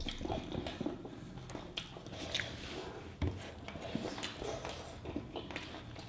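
Close-up eating sounds: chewing with small wet smacks and clicks, as a meal of chicken curry and rice is eaten. The clicks come at uneven intervals, with a slightly sharper one about halfway through.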